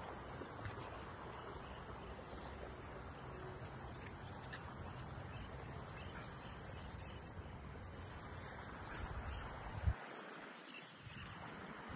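Rural outdoor ambience of steady, high-pitched insect chirring over a low rumble. A single short thump comes near ten seconds in, the loudest moment, and the rumble drops away briefly after it.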